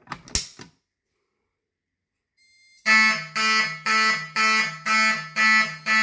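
A Fire-Lite BG-12 pull station clicks as its handle is pulled down. After about two seconds a fire alarm horn starts sounding in even pulses, about two a second, the march-time pattern from the panel's NAC encoder.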